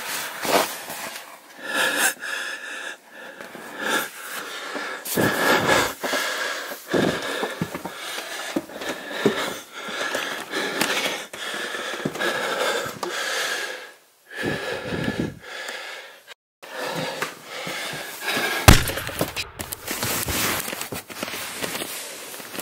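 A person's heavy, uneven breathing close to the microphone in a small room, with rustling and a sharp knock about nineteen seconds in.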